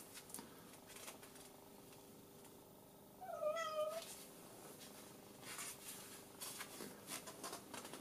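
A cat meowing once, briefly, about three seconds in, with faint rustles and clicks of gloved hands handling a metal missile fin.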